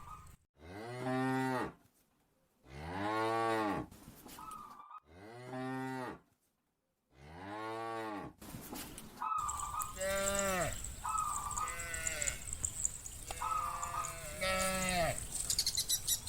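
Cows mooing, a string of long calls, each rising and then falling in pitch. From about nine seconds in, the calls come closer together and overlap.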